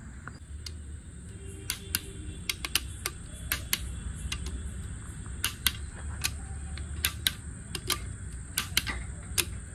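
Torque wrench clicking as the crankshaft main bearing cap bolts are tightened to torque: sharp metallic clicks in small irregular clusters, some in quick pairs, over a steady low hum.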